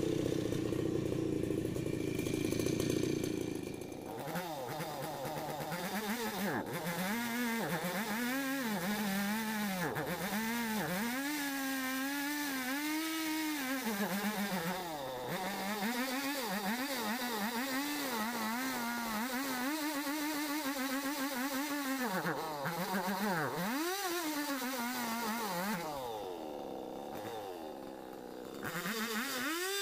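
Two-stroke chainsaw running under load, its engine pitch rising and falling over and over as it revs up and bogs down in the cut through the felled tree's limbs, briefly quieter near the end.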